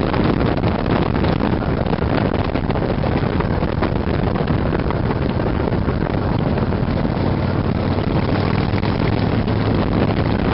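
Sidecar motorcycle riding at steady cruising speed: the engine runs with a constant low hum under heavy wind noise buffeting the microphone.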